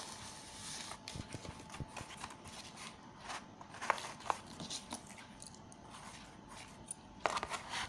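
Handling noise from unpacking the mic: scattered small clicks and short rustles of packaging, with a louder cluster near the end.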